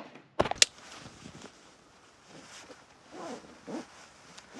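Two sharp clicks about half a second in, then quiet rustling of clothing and backpack straps as gear is handled.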